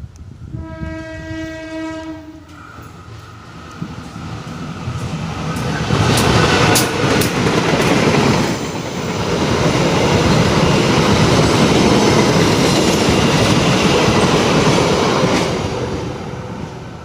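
CC206 diesel-electric locomotive sounding one steady horn blast of about a second and a half. The passenger train then comes up and passes close by, loud, with wheels clicking over rail joints, and the sound cuts off suddenly at the end.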